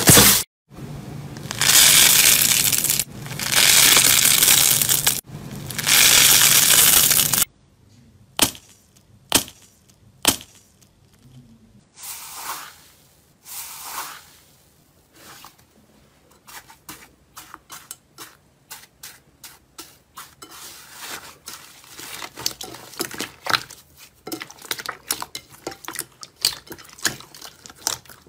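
Slime being pressed and worked by hand, making crunchy crushing and crackling sounds. There are several long, loud scrunching strokes for the first few seconds. After a sudden change, scattered pops and swells follow, then a dense run of quick crackles.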